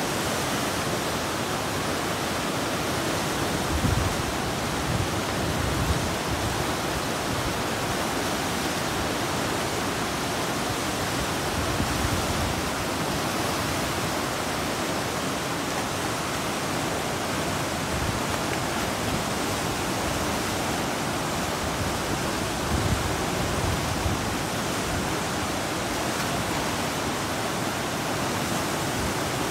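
River water rushing in a steady, even roar of white-water rapids just below a weir, the flow high and fast. A few brief low bumps stand out now and then.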